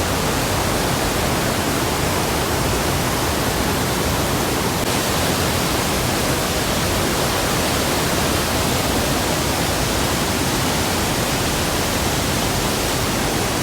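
Elephant Falls waterfall pouring at heavy flow, a loud, steady rush of water.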